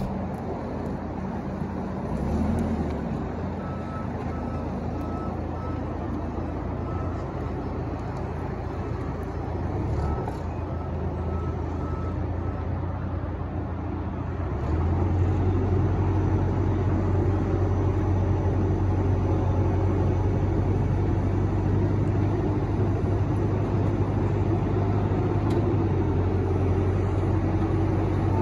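Manitou M50.4 rough-terrain forklift's diesel engine running, with a beeping alarm (short beeps, about two a second) sounding on and off through the first half as the machine backs away. About halfway through, the engine comes up to higher revs and runs louder and steady as the hydraulics raise the mast and forks.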